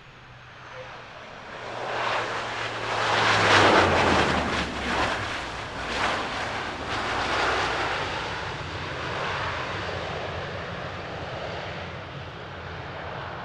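De Havilland Canada Dash 8-400 turboprop rolling out just after touchdown: its engines and six-bladed propellers swell to a loud noise as it passes close, peaking a few seconds in, then fade slowly as it rolls away down the runway, with a steady low hum underneath.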